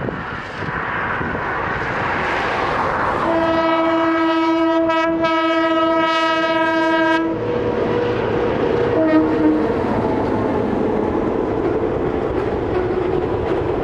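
Diesel freight locomotive approaching and sounding its horn in one long blast of about four seconds, starting about three seconds in. The locomotive's engine and the rolling of the container wagons' wheels over the rails go on under and after it.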